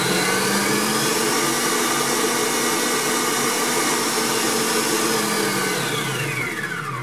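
Electric mixer whipping cream and mascarpone with sugar, a steady motor whine with the beaters churning the mix. The pitch settles after spinning up, then falls away near the end as the mixer slows to a stop.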